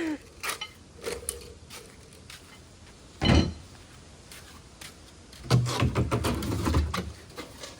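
Packaging and parts being handled while a shipping box is unpacked: scattered light knocks, a heavy thump about three seconds in, then low scraping and rumbling for about a second and a half.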